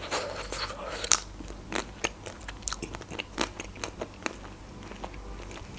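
Close-up biting and chewing of a chocolate-coated ice cream bar, the hard chocolate shell cracking in a string of sharp, irregular crackles.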